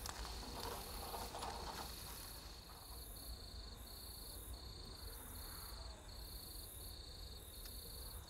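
Insects chirping in regular repeating pulses, one high-pitched call and a still higher one pulsing more slowly, over a faint low steady background.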